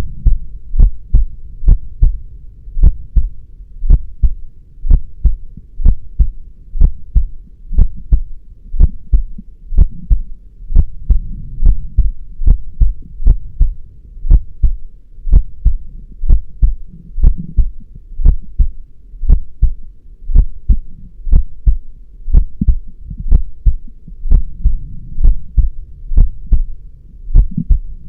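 A heartbeat: a steady rhythm of low double thumps (lub-dub), about one beat a second, over a low rumbling hum.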